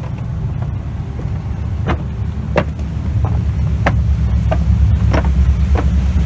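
Low, steady rumble of a steamship under way, heard on its open deck with wind on the microphone, growing a little louder about halfway through. Half a dozen short, sharp knocks come at uneven gaps over it.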